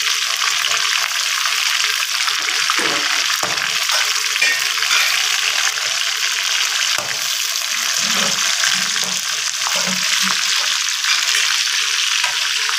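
Chicken pakora pieces deep-frying in hot oil in a kadhai: a steady sizzle, with a few clicks of a slotted spatula against the pan as the pieces are turned.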